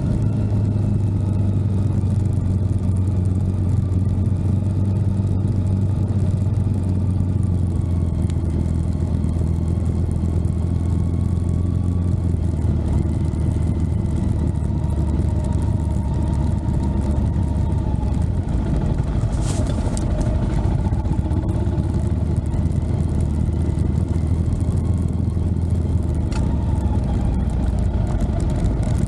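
An engine running steadily with a deep, even hum, and a few brief clicks about two-thirds of the way through.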